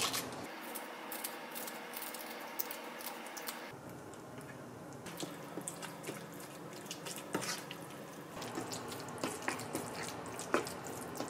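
Kitchen scissors snip a green chili pepper into a wooden bowl. A wooden spoon then mashes soft tofu and stirs it into a wet soybean-paste sauce, squelching, with repeated light clicks of the spoon against the bowl.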